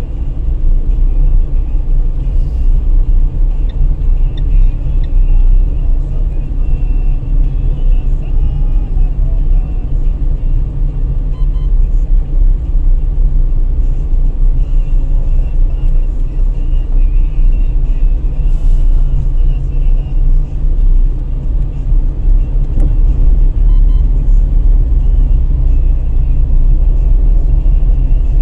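Car driving over a brick-paved street: a steady low rumble of tyres on pavers and road noise.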